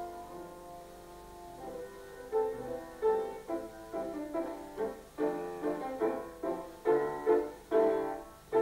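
Background piano music: a soft held chord for the first two seconds, then a run of separately struck notes and chords at a lively pace.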